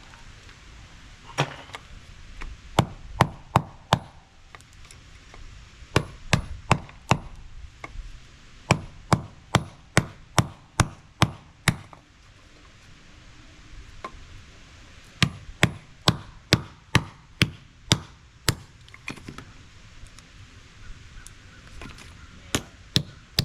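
Repeated sharp strikes of a hand tool on appliance scrap as it is broken apart to free copper and other metal. The strikes come in quick runs of about three a second, with short pauses between the runs.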